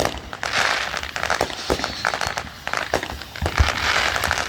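Fireworks going off: rapid sharp crackling pops over a hiss.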